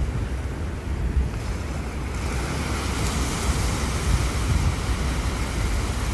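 Waves washing onto a sandy beach, with strong wind buffeting the microphone in a low rumble; the surf's hiss swells about two seconds in.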